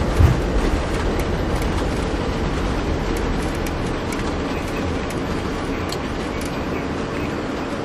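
Airbus A330 rolling out on the runway after landing, heard from the flight deck: a steady rumble and rush that slowly fades as the aircraft slows, with a thump just after the start and a few faint rattles.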